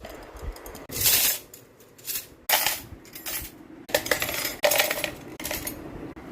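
Small hard objects clinking and rattling in about five short bursts while things are handled and set down.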